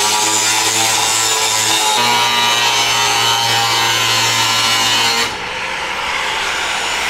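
Cutoff wheel grinding through rusted sheet-metal body panel, a steady high whine over a harsh hiss. About five seconds in the cutting stops abruptly and the tool runs on more quietly.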